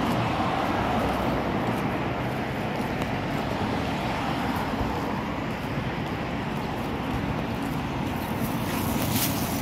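Road traffic: cars driving past on a multi-lane road, a steady noise of tyres and engines that eases a little midway and grows louder near the end.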